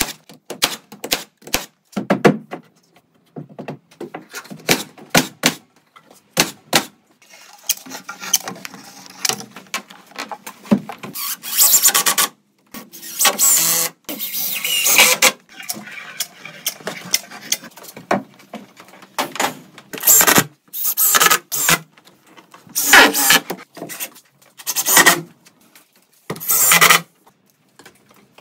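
A cordless framing nailer firing a quick series of sharp shots into wood framing lumber. Then an impact driver runs in repeated bursts of one to two seconds, driving screws into the lumber.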